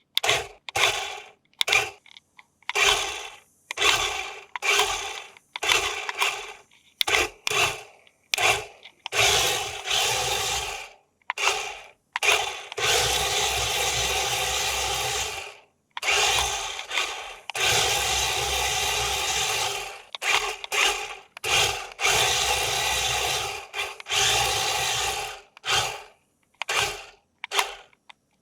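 Small electric motor and plastic gears of a toy RC vehicle whirring in many short bursts, with two longer runs of about three seconds each near the middle.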